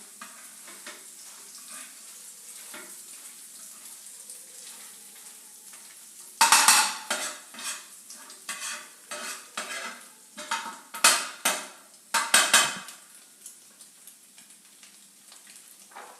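Food sizzling softly in oil in a pan, then from about six seconds in a run of loud scraping strokes as a spatula stirs the mixture against the pan, easing off near the end.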